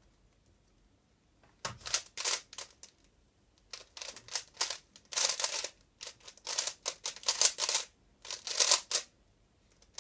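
A 3x3 speedcube being turned rapidly by hand in a timed speedsolve: plastic layers clacking in fast bursts broken by short pauses. It starts about one and a half seconds in, after near silence.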